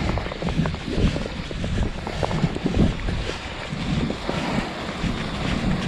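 Wind rumbling on the microphone while someone walks through snow, with irregular footfalls thudding about every half second.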